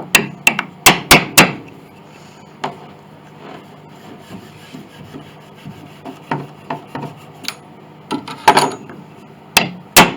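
Hammer tapping at a glued wooden joint in an 1867 Chickering grand piano to crack the old glue: five quick taps at the start, a single tap a little later, then another burst of taps about eight seconds in and two more near the end, with light scraping of wood between.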